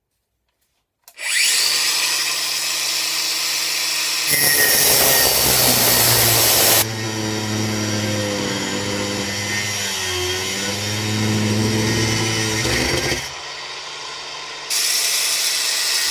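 Cordless Bosch angle grinder with a 1 mm cutting disc starting up about a second in and cutting through a padlock's shackle, the grinding hiss loudest in the first few seconds of the cut. Near the end the sound drops back briefly, then the disc cuts again.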